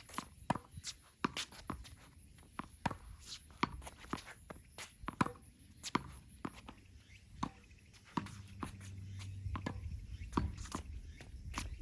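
Tennis practice on court: sharp, irregular knocks of balls being struck and bouncing, mixed with footsteps. A faint steady low hum comes in about two-thirds of the way through.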